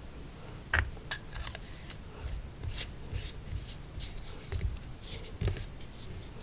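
Small objects handled on a workbench: scattered light clicks, taps and brief rubbing, with one sharper click about a second in.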